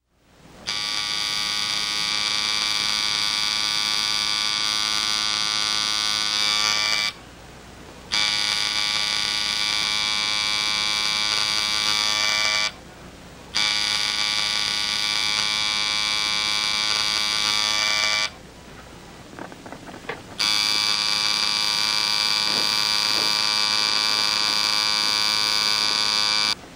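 A loud, steady buzzing hum with many overtones. It cuts off abruptly and comes back three times: for about a second around seven seconds in, briefly around thirteen seconds, and for about two seconds around eighteen seconds.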